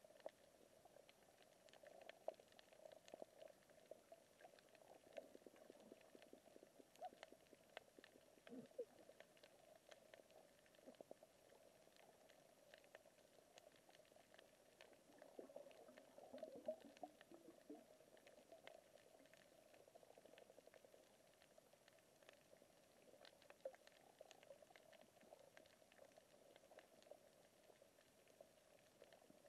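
Faint underwater ambience on a coral reef, heard through a camera's waterproof housing: a steady dull hum with many scattered fine clicks and crackles.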